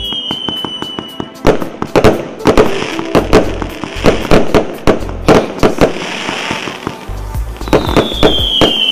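A 100-shot, 0.8-inch calibre consumer firework cake firing in rapid succession: a quick run of shots and bursting shells with crackle. Near the end a whistle falls in pitch.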